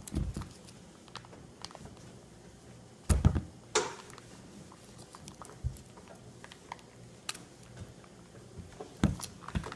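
Fingers picking and prying at the lid of a plastic tub: scattered small clicks and scratches, with a couple of louder knocks about three seconds in and again near the end.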